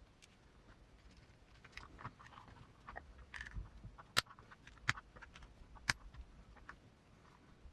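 Small parts of a 1/10 RC crawler transmission (gear, bearings, pin and plastic case halves) being handled and fitted by hand: scattered light clicks and taps, with three sharper clicks about four to six seconds in.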